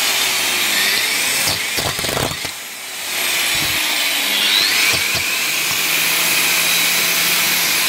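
Makita GA4540R angle grinder running free with no load. About two and a half seconds in its sound drops away briefly, then it spins back up with a rising whine and runs steadily again. The motor has a shorted field winding that sparks at the top of the tool.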